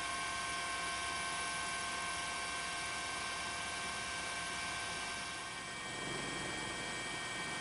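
Steady noise from a helicopter's cabin, with several high steady whining tones over a hiss. About three-quarters of the way through the tones fade and a lower rumble takes over.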